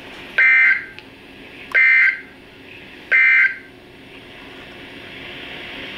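Three short bursts of two-tone Emergency Alert System (SAME) digital data on NOAA Weather Radio, about a second and a half apart: the end-of-message code that closes the warning. Low radio hiss fills the gaps between bursts.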